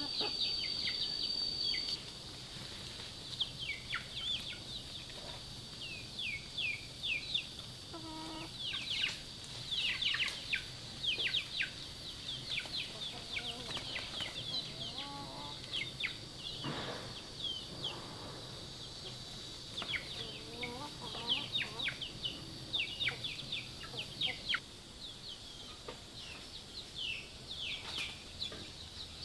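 Chickens: a brood of chicks peeping continuously, many short falling peeps a second, with an occasional lower cluck from a hen. A steady high tone stops about two seconds in.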